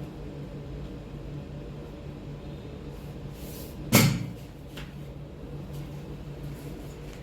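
A single sharp thud about four seconds in, a chiropractic adjustment thrust delivered once the patient has relaxed, over a steady low hum.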